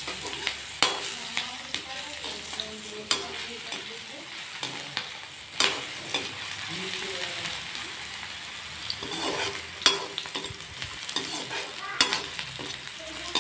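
Sliced onions and ginger-garlic paste sizzling in hot oil in a kadai, stirred with a perforated metal slotted spoon that knocks and scrapes against the pan about five times. The onions and ginger-garlic are browning.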